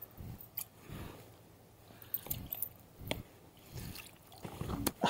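Irregular small splashes and dribbles of water as a hand moves a brown trout about in a landing net sitting in the shallows, with a few sharp clicks in between.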